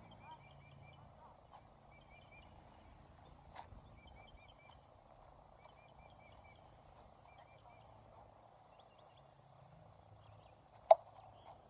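Quiet outdoor background with small birds chirping in short repeated phrases, and one sharp crack near the end, typical of a plastic wiffle ball bat hitting the ball.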